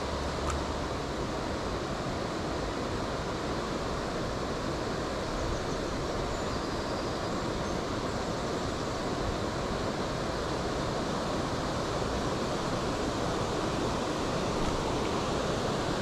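Steady rush of river water pouring over a weir.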